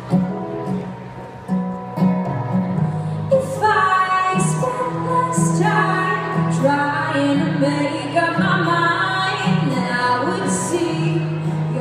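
A female singer performing live to guitar accompaniment. Her voice climbs higher and grows louder about three and a half seconds in.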